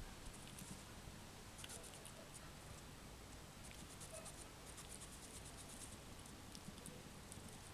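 Hedgehog foraging on bare concrete: faint, irregular scratchy clicks and patter in short clusters, over a low steady hum.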